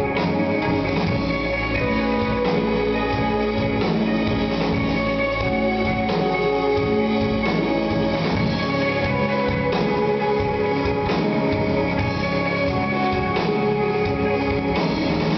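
Instrumental post-rock band playing live: sustained, layered electric guitar notes over a full drum kit, heard from among the audience.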